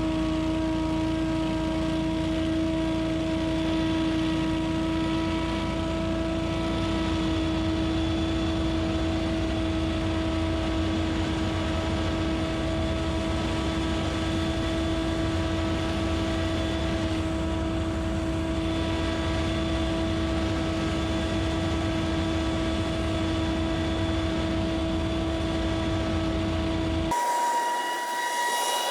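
Scag Windstorm stand-on leaf blower running steadily, its engine and blower fan giving a constant whine over a low rumble. Near the end the sound changes abruptly to a thinner, higher whine without the low rumble.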